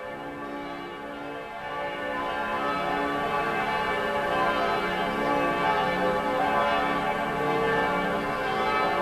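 Several church bells ringing together in a dense, overlapping peal: the Sunday-morning call to Mass. The ringing grows louder about two seconds in.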